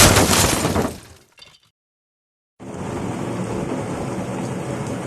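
A loud crashing burst that fades out within about a second, then after a short silence a rhizome washing-peeling machine starts running steadily, about two and a half seconds in.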